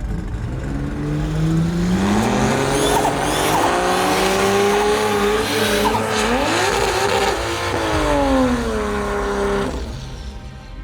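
Drag race car engine at full throttle, its pitch climbing, dropping back at gear changes and climbing again, then falling away and cutting off near the end.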